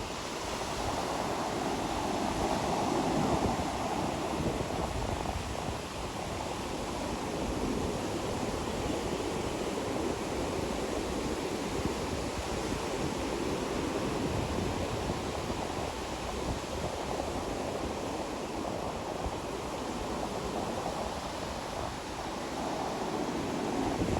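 Ocean surf washing onto a beach: a continuous rushing hiss of waves, swelling a little around three seconds in and again near the end.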